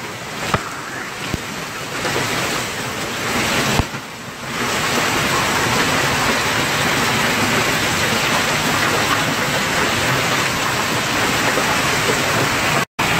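Heavy hailstorm: dense hail pelting the ground, shrubs and trees in a steady roar of impacts, with a few sharper knocks in the first four seconds. It grows louder and steadier about four seconds in and breaks off for an instant near the end.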